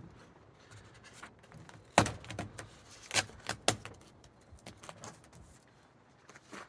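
Hard plastic and small metal screws being handled: a few separate sharp clicks and knocks, the loudest about two seconds in, as the unscrewed handle trim piece and its Torx screws are moved about.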